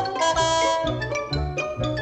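Background music: a busy run of quick pitched notes over a low bass beat about twice a second.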